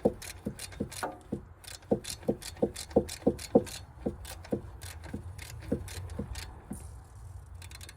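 Ratchet wrench clicking in an even rhythm, about three clicks a second, as the fuel rail pressure relief valve of a Duramax 6.6 L LLY diesel is turned out; the clicking stops about seven seconds in.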